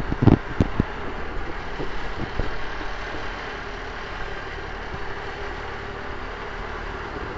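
River boat's engine running steadily under way, with the wash of water along the hull. There are a few sharp knocks in the first second.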